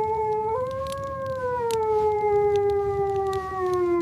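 A wolf howling: one long call that steps up in pitch about half a second in, then slowly falls and breaks off at the end, with the next howl starting right after. Low wind noise and scattered sharp clicks sound underneath.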